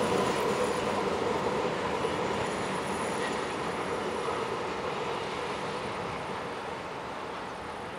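Historic steam-hauled train rolling away, a steady rumble of wheels on rail that slowly fades.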